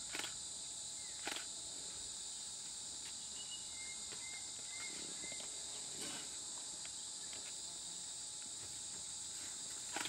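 Steady, high-pitched chorus of insects. A few faint ticks and some short, faint whistles in the middle sit on top of it.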